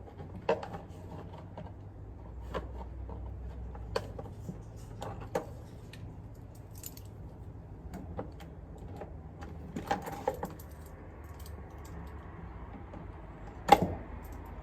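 Scattered metallic clicks and clinks of hand tools at work on the two 10 mm bolts that hold a pickup truck's side mirror, with a sharper knock near the end.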